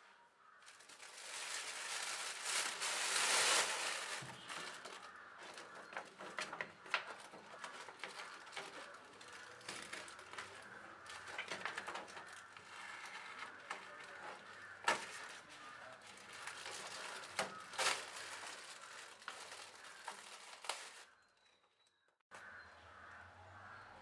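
Plastic packaging crinkling and rustling with many sharp crackles as it is handled and pulled about, loudest about two to four seconds in. The rustling stops about 21 seconds in, and a faint low steady hum follows near the end.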